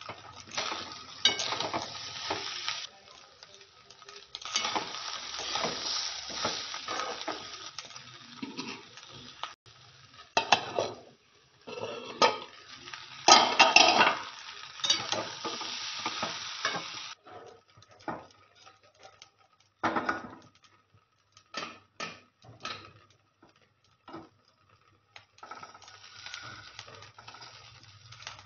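A spoon stirring and scraping rice and spices in a steel pot over the heat, with frying sizzle and sharp clinks and knocks of metal on the pot. It comes in stretches that stop abruptly, with scattered knocks and a quieter sizzle later on.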